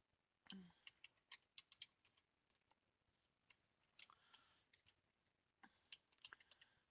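Faint computer keyboard typing and mouse clicks, short taps in small clusters against near silence.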